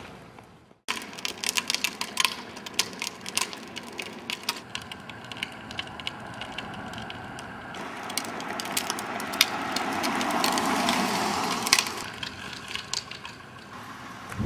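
Low big-wheel-style trike rolling on asphalt, its hard wheels rattling and grinding with many clicks. The noise swells as it comes close, about ten seconds in, then falls away.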